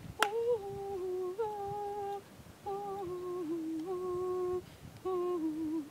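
A voice humming a slow tune in held notes that step up and down, in short phrases with brief pauses between them, after a sharp click just at the start.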